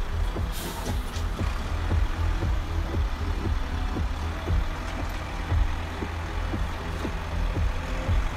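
Sound module of a radio-controlled construction machine playing a diesel engine running, a steady low rumble from the model's speaker.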